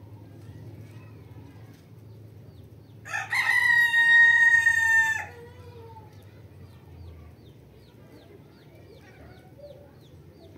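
A rooster crows once, a single call of about two seconds starting about three seconds in, rising at the start, held on one pitch, then dropping off at the end.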